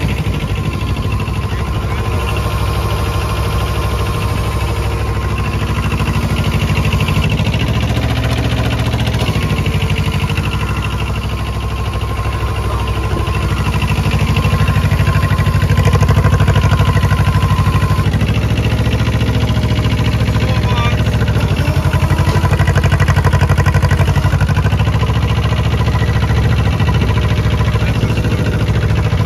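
Engine of a small Gutbrod two-cylinder tractor running steadily, its speed rising and falling a few times.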